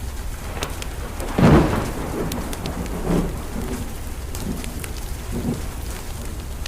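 Thunder rumbling over steady rain, loudest about a second and a half in, with two weaker rolls after. A wood fire crackles with sharp little pops throughout.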